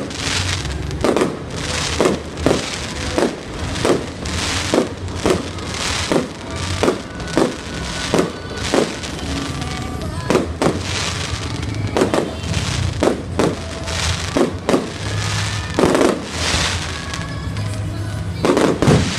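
Aerial fireworks bursting in quick succession, about two sharp bangs a second, over music with a steady bass.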